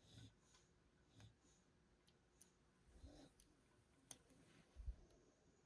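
Faint, irregular clicks of a lock pick working the pins inside a lock cylinder under tension, a handful of small ticks and knocks, the loudest a little before the end.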